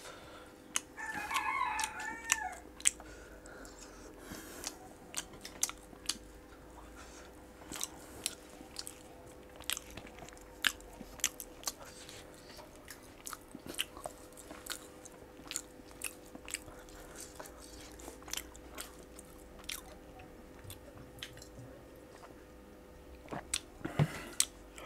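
Close-up chewing and biting of fried singaras, with scattered short crunches and small clicks. There is a brief high-pitched bending call about a second in.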